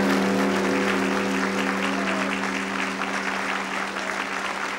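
A gong ringing out after a stroke, several steady tones slowly fading, over audience applause.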